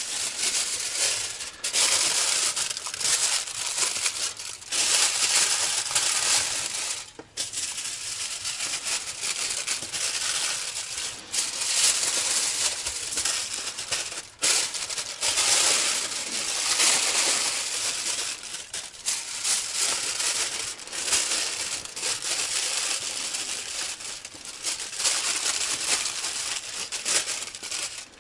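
Aluminium foil crinkling as it is crumpled and folded by hand around a pumpkin, with a couple of brief pauses.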